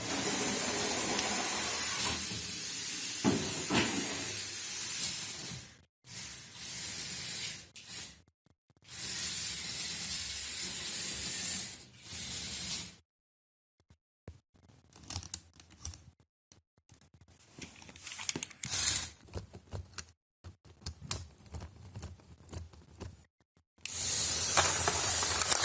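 Lego Technic tracked vehicle driving: its electric motors and plastic tracks run with a steady hiss in several stretches that stop abruptly. In between comes a spell of scattered clicks and crackles.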